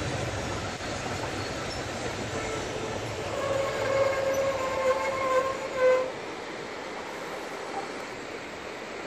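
Steam locomotive whistle sounding one steady note for about two and a half seconds over the rumble of a running train, then cutting off sharply. The train noise carries on as a quieter, steady rush.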